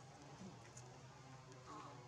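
Near silence: faint background noise with a steady low hum.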